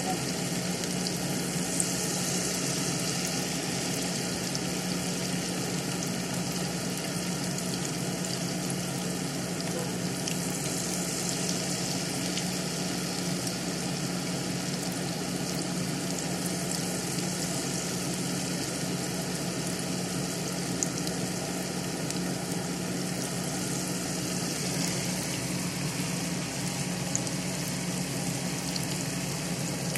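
Battered onion and cabbage fritters deep-frying in hot oil in a cast-iron skillet: a steady sizzle and bubbling with occasional sharp crackles.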